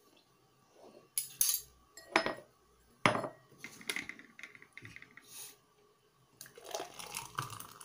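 Clinks and knocks of a spoon, a plastic tub and a drinking glass being handled on a tiled floor. Near the end, the thick kuini-mango and milk drink is poured from the tub into the glass.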